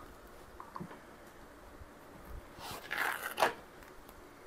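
Fresh lasagna sheets being handled and laid into a baking pan: a few faint ticks, then a brief crinkling scrape about three seconds in.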